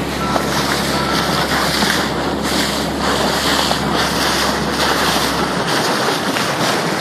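Wind buffeting the microphone over choppy sea water slapping around a small boat, with a low steady hum underneath that cuts out about five and a half seconds in.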